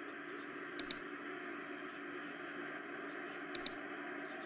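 Steady static-like hiss with a low hum underneath, broken by a quick double click about a second in and again near the end.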